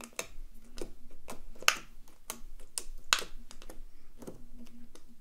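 Long nails poking and pressing clear slime in a plastic tub, giving a run of irregular sharp clicks and taps, several a second, with two louder clicks in the middle.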